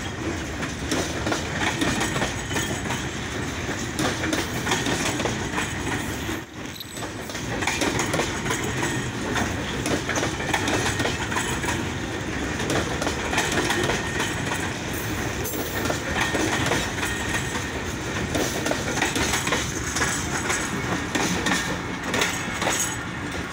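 Goods train of covered box wagons rolling past close by: a steady rumble and clatter of wheels running over the rail joints, briefly dipping about six and a half seconds in.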